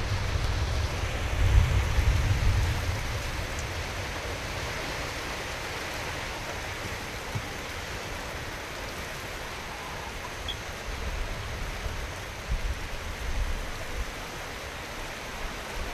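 Rain falling steadily, a continuous hiss, with a low rumble over the first few seconds that dies away.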